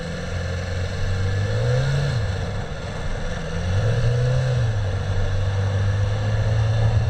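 Sport motorcycle engine running under way, its pitch rising and falling back twice as the throttle is opened and eased, over steady wind and road noise.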